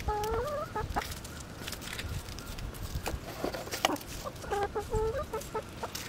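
Pullets (young barred and black hens not yet laying) clucking in short, pitched, up-and-down calls: one run in the first second and another about four and a half seconds in, with scattered faint ticks between.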